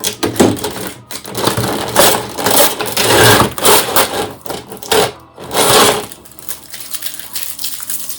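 Cardboard and plastic packaging being rustled, scraped and pulled as a figure set is worked out of its box, in loud irregular bursts that die down after about six seconds.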